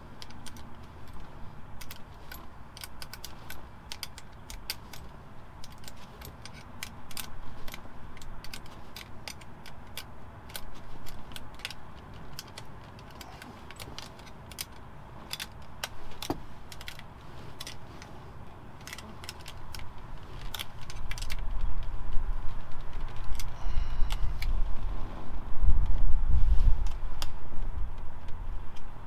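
Small, irregular metallic clicks and taps of a hand tool working screws on a truck's dashboard switch panel. A low rumble with a few thumps grows louder over the last several seconds as the panel is handled.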